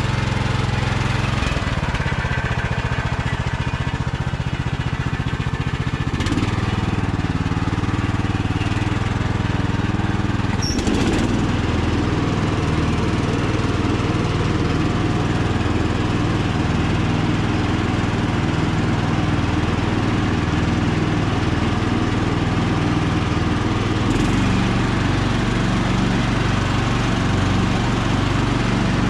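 Kohler Courage 20 hp single-cylinder engine on a riding lawn tractor running steadily. Its note shifts a few times, and there is a sharp click about eleven seconds in.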